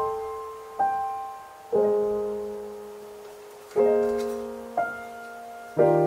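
Slow piano music: single notes and chords struck about a second apart, with a longer pause in the middle, each left to ring and fade.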